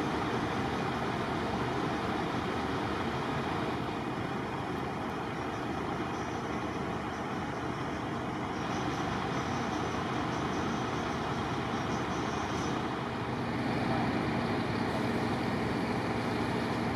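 Truck engines running, a steady mixed noise with no single event. About three-quarters through, a low engine hum comes in and the noise grows slightly louder.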